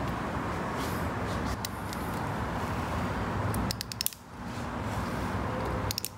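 Ratcheting torque wrench with a 36 mm hex socket turning a Porsche 911 Carrera T's oil filter housing loose. There is a steady rough noise of the tool working, and a quick run of ratchet clicks a little past halfway and again near the end as the handle is swung back.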